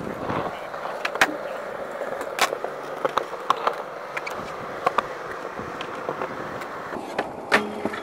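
Skateboard rolling on smooth concrete, a steady wheel rumble with scattered sharp clicks, and a louder clack near the end.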